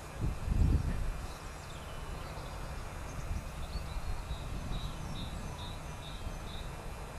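Wind buffeting the microphone, with gusts in the first second, and a small bird calling a run of short, high repeated notes at about two a second through the second half.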